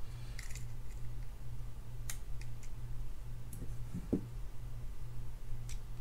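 Scattered small metal clicks and taps of pliers and small fishing-reel parts being handled, about five sharp clicks and one soft knock over a low steady hum.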